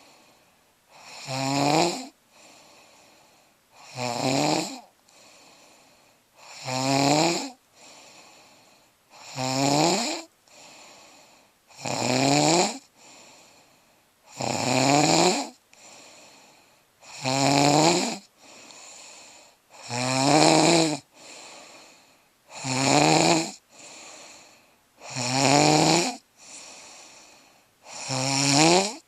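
A person snoring in deep sleep: a loud snore about every two and a half seconds, each one rising in pitch, with a softer breath between snores.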